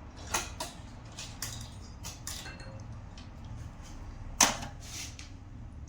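Scattered clicks and light taps of wire leads and connectors being handled while hooking up an alternator regulator, with one sharper click about four and a half seconds in.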